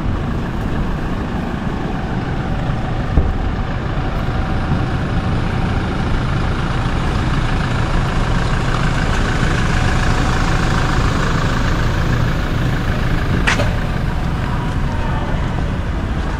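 Steady street noise from a motor vehicle engine running nearby, a low rumble with a faint steady hum. A brief sharp click near the end.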